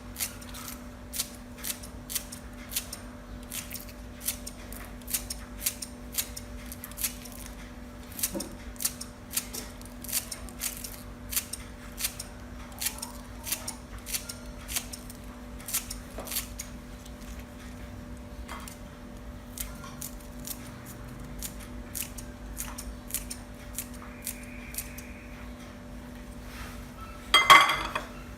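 Kitchen scissors snipping green onion and dill, a sharp snip about once or twice a second that grows sparser later on, over a faint steady hum. A louder clatter near the end.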